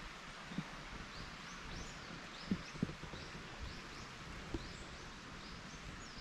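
Birds giving repeated short, high, rising chirps over a steady background hiss, with a few low thuds of footsteps on the suspension bridge's wooden deck.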